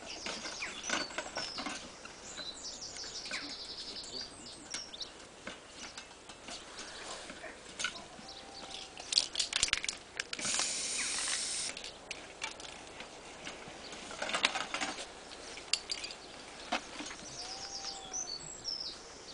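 Wire cage trap clinking and rattling as a slatted restraining comb is worked between its bars around a trapped badger, with a longer scraping rush about ten seconds in. Birds chirp now and then in the background.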